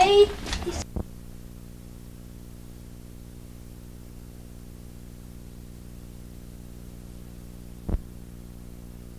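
A child's singing breaks off with a click about a second in. What follows is a steady electrical hum with many even overtones and faint hiss: the blank gap between recordings on an old home videotape. A second short click comes near the end.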